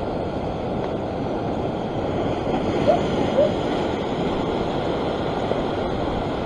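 Sea swell surging and breaking against shoreline rocks: a steady wash of surf. Two short, faint chirps come about three seconds in.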